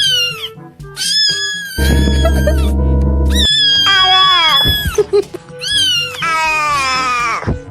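Cat meows and yowls, several separate calls each sliding down in pitch, over background music. A loud low buzzing sound comes in about two seconds in and lasts a second and a half.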